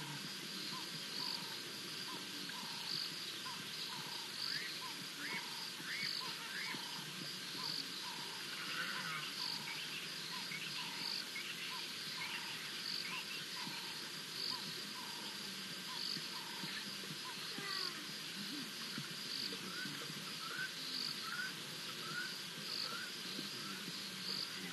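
Chorus of insects and frogs calling: a high pulsing call repeats about once a second throughout, over a run of short even calls about two a second that stops after about 17 s. Short rising chirps take over near the end.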